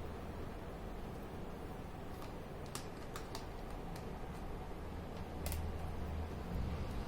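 Scattered light clicks and taps over a steady low hum, a few seconds apart at first and coming more often near the end.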